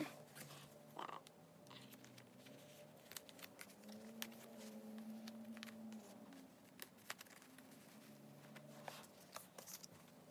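Faint crinkling of a clear plastic binder sleeve and small clicks as photocards are handled and slid into its pockets.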